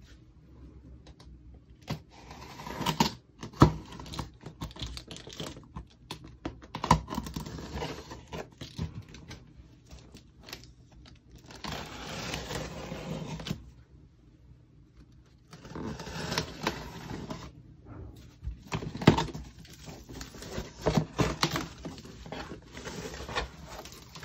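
Hands unboxing a cardboard shipping box: a clear plastic packing-list pouch and tape crinkling and peeling off, cardboard flaps being pulled open, with scattered sharp clicks and knocks. Two longer spells of rasping peeling come about halfway and two-thirds of the way through.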